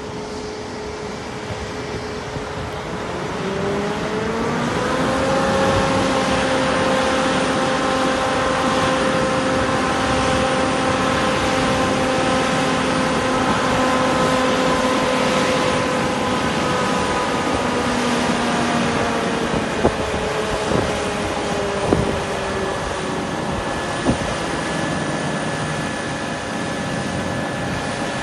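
Airport fire truck's engine and pump running up to high revs at about four seconds in and holding steady while its roof water cannon sprays, over a hiss of water and the run of a taxiing jet airliner; the pitch falls back around eighteen seconds in, and a few sharp clicks come near the end.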